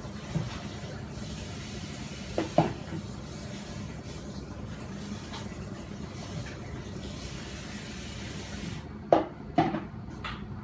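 Kitchen tap running steadily, with a couple of knocks about two and a half seconds in; the water cuts off suddenly near the end, followed by two sharp knocks and a click.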